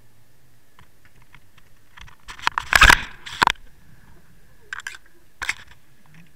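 Underwater, a burst of crackling, crunching clicks about two seconds in, followed by two smaller clicking bursts near the end. A faint steady high tone runs underneath.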